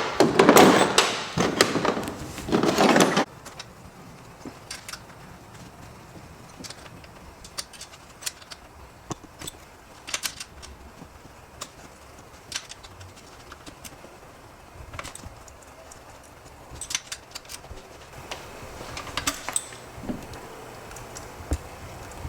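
Metal hand tools and engine parts clinking and rattling on a workbench: a loud burst of clattering for the first three seconds, then scattered light clicks and taps.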